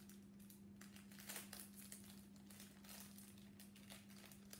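Small plastic accessory packet crinkling as fingers pick it open: faint, irregular crackles over a steady low hum.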